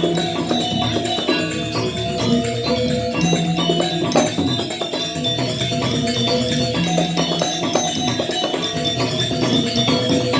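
Balinese Semar Pagulingan gamelan playing: a dense run of fast metallic strikes over held ringing tones, with a deeper note returning about every three and a half seconds.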